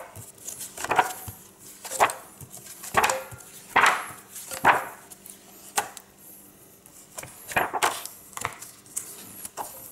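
Pages of a large hardcover book being turned one after another, about one turn a second, each a short noisy stroke of paper.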